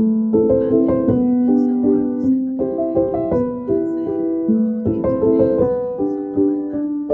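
Background music: gentle piano or keyboard melody with sustained notes.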